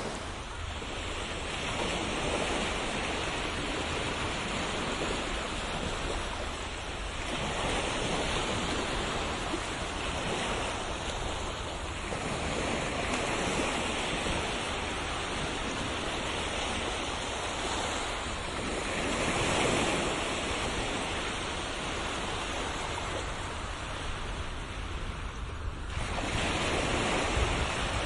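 Ocean waves washing onto a shore, the rush swelling and fading about every five or six seconds, over a low rumble of wind. Near the end the sound changes abruptly to a fuller, steadier rush.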